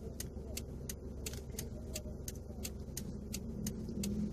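Car indicator ticking at an even pace, about three clicks a second, over the steady hum of the car's engine and road noise inside the cabin.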